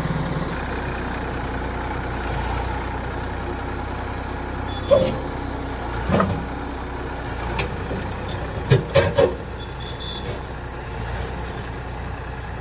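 Massey Ferguson 241 tractor's diesel engine running steadily under a loader-backhoe attachment, with sharp metallic knocks about five seconds in, again a second later, and three in quick succession near three-quarters of the way through.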